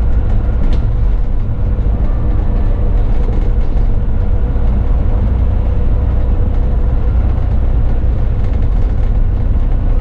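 Single-deck service bus driving along, heard from the driver's cab: a steady, loud low rumble of engine and road noise with a faint steady hum.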